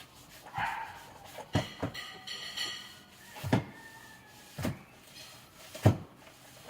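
Several separate knocks and thumps of objects being handled close to the microphone, the loudest near the end, with a faint high whine for about a second around two seconds in.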